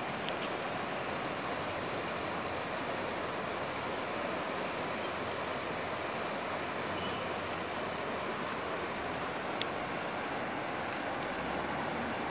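Steady rush of a fast-flowing river, with one short click about three quarters of the way through.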